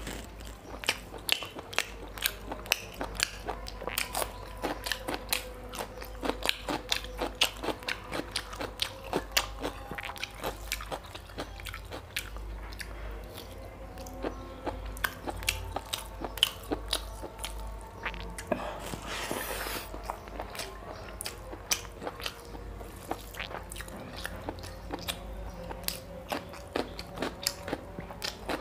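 Close-miked eating of mutton curry and rice by hand: a steady run of wet chewing, lip-smacking and mouth clicks, with a short rush of noise about two-thirds of the way through.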